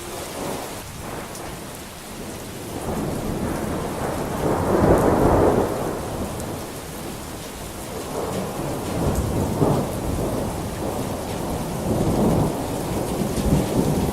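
Steady heavy rain with rolling thunder rumbling through it. The rumble swells loudest about four to six seconds in and builds again near the end.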